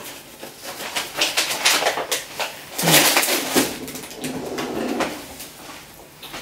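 Banana pieces being handled and pressed into flour on a plate: irregular rustles, taps and scrapes of hands, food and crockery, busiest around three seconds in.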